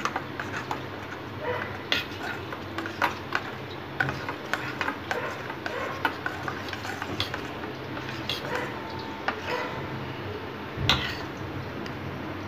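Steel spoon stirring wet ground chutney in a stainless steel bowl, with irregular clinks of metal on metal as it scrapes the sides; the loudest clink comes near the end.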